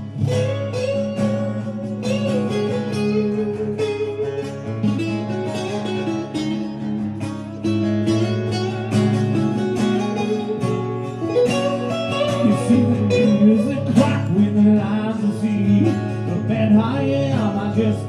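Instrumental break played live on two acoustic guitars: one strums the chords while the other picks a lead melody over them.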